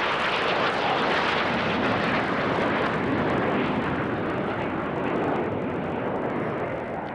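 BAE Hawk jet trainers flying a low pass, their engines making a steady, dense jet noise that slowly fades over the last couple of seconds.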